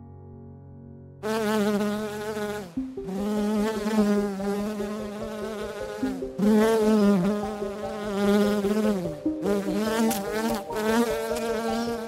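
Bumblebee buzzing close up, a loud drone whose pitch wavers and dips, with a few brief breaks. It starts about a second in, after soft piano notes.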